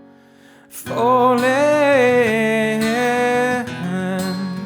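Acoustic folk song: after a brief quiet dip, a solo voice comes in about a second in and holds one long sung word, its pitch wavering, over acoustic guitar.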